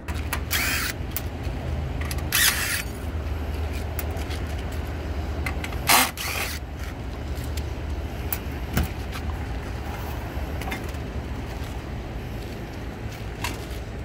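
Cordless drill spinning in three short bursts in the first half, backing the screws out of a rooftop air-conditioning unit's sheet-metal access panel, with scattered light clicks, over a steady low rumble.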